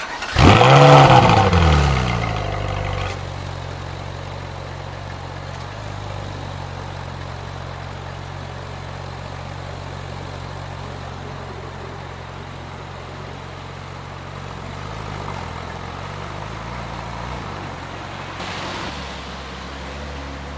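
Ferrari 458 Spyder's 4.5-litre V8 revs up loudly and falls back over the first couple of seconds, then settles into a steady idle through its triple exhaust. Its note shifts near the end.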